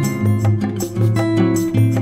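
Background music: a strummed acoustic guitar with light percussion keeping a steady beat.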